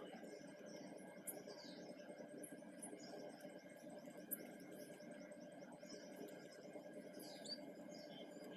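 Faint chirping of small birds, with a fast run of short high ticks and two sharper chirps falling in pitch about one and a half and seven and a half seconds in, over a steady low hum. A brief click stands out about four seconds in.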